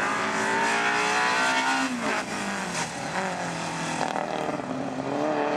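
Race-prepared Audi 50 hatchback's four-cylinder engine revving up, then dropping sharply in pitch about two seconds in. It holds steady at lower revs through a tight corner and starts to rise again at the end.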